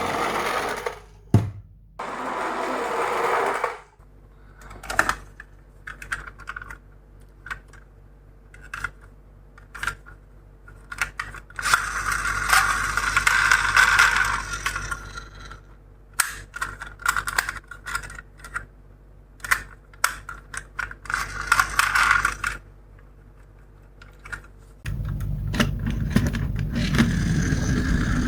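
Miniature toy cars rolling down a slope. There are bursts of rattling wheel noise and scattered sharp clicks as they run and knock, and a louder, lower rolling rumble begins near the end.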